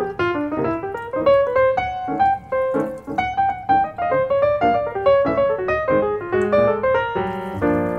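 Background piano music: a melody of quick single notes over a low accompaniment, moving into fuller held chords near the end.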